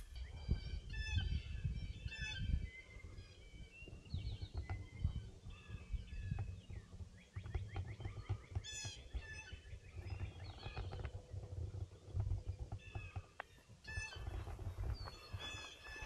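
Footsteps on a hiking trail, with several wild birds chirping and giving quick trilled calls now and then.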